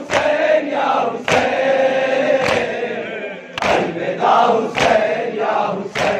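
A group of men chanting a noha, a Shia mourning lament, in unison, with sharp slaps about every 1.2 seconds in time with the chant. The slaps are the matam, chest-beating that keeps the beat.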